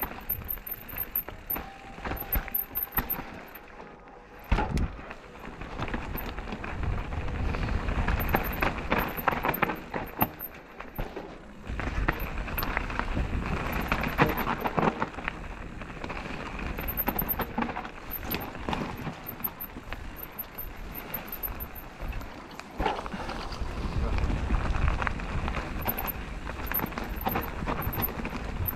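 Mountain bike ridden down a rough dirt singletrack: tyres on dirt and stones and the bike rattling over roots and bumps, a constant clatter of small knocks over a low rumble.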